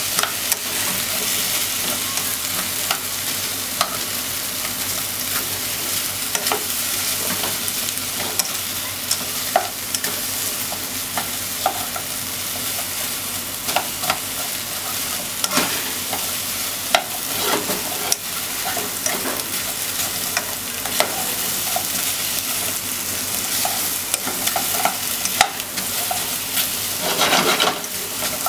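Onion, carrot and potato chunks frying in a pot with a steady sizzle, stirred with a plastic spatula whose scrapes and knocks against the pot come as scattered clicks. A burst of louder stirring comes near the end.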